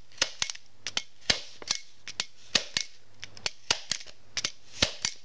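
MAX HD-10FL flat-clinch mini stapler being pressed again and again through a stack of 20 sheets of paper: a quick run of sharp clicks, about four a second, some coming in close pairs.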